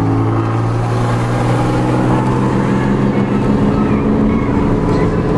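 Steady engine and road drone heard from inside a car's cabin at highway speed, a continuous low hum with a few steady tones that shift slowly in pitch.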